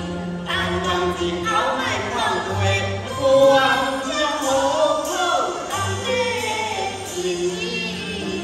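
Teochew opera music: melodic singing that slides in pitch over sustained instrumental accompaniment.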